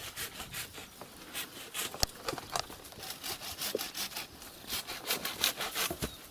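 Dry shrub branches and twigs crackling, scraping and snapping as they are grabbed, pulled and broken by hand: a quick, irregular run of cracks and rustles.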